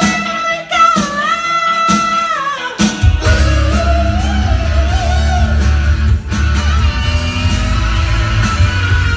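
Rock song with a high falsetto vocal held over a sparse break, then the full band with electric guitar, bass and drums crashes back in about three seconds in and carries on under the singing.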